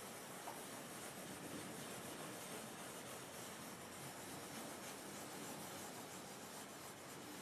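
Faint, steady scratching of a foot-long toy pencil's graphite point on a paper pad as it scribbles small looping strokes.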